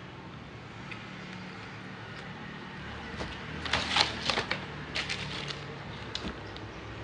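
Eating sounds from a KFC submarine sandwich: chewing, then a run of sharp crisp crackles and clicks about halfway through as the bread is torn and bitten, over a steady low hum.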